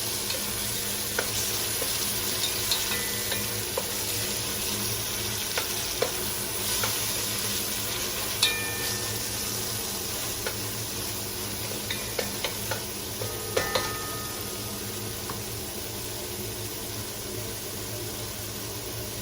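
Onion, garlic, carrots, tomato paste and pepper paste sizzling steadily in olive oil in a pot, with a spoon now and then clicking and scraping against the pot as it is stirred; a few of the knocks ring briefly.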